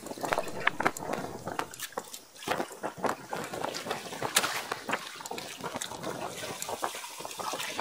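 Water lapping and splashing against the hull of a small wooden outrigger boat, with irregular small clicks and knocks.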